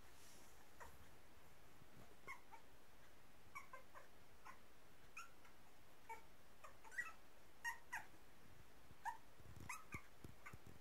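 Young puppies squeaking and whimpering: many short, high little calls, scattered irregularly, the loudest coming between about seven and ten seconds in.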